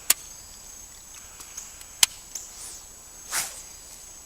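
Two sharp clicks about two seconds apart and a short swish near the end, over a faint steady high insect buzz.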